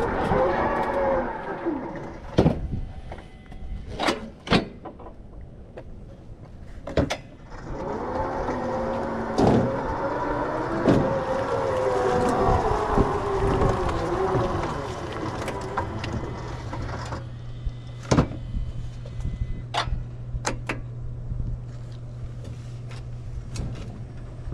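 Battery-electric mower's drive motors whining, rising and falling in pitch as it is driven, with several sharp knocks in between. A steady low hum runs through the last third.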